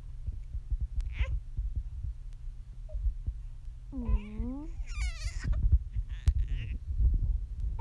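A four-month-old baby vocalizing: a short coo that dips and rises in pitch about four seconds in, then a higher squeal about a second later.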